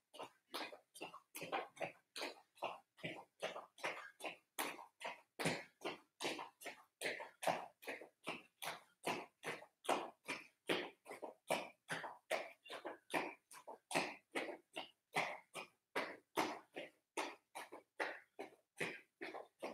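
Bare feet striking foam floor mats while jogging in place with knees raised: faint, short footfalls in a steady rhythm of about three a second.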